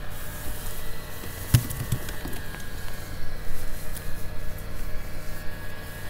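Bow-mount electric trolling motor humming steadily on a kayak, with one sharp knock about a second and a half in and a few softer thumps just after it.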